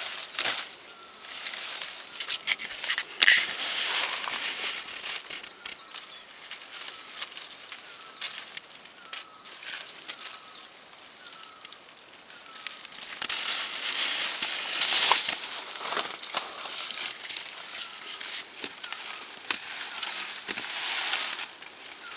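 Rural outdoor ambience: scattered clicks and crackles with two spells of rustling, a short falling chirp repeated about once a second, and a steady high-pitched hum.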